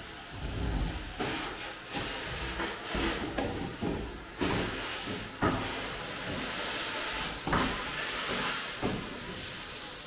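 Vacuum cleaner sucking leftover sand off the glass floor of an emptied aquarium through a metal wand. It makes a rushing hiss that swells and fades as the nozzle moves, with a couple of sharp clicks about halfway through.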